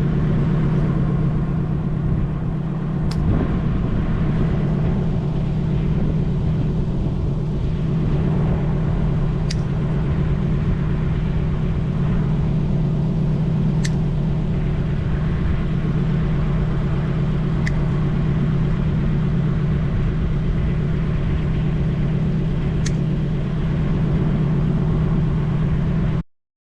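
An engine running steadily at an even speed, with five sharp clicks spaced a few seconds apart, cutting off abruptly near the end.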